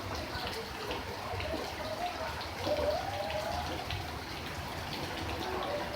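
Steady rain, with many individual drops ticking. A faint wavering tone rises and falls about halfway through.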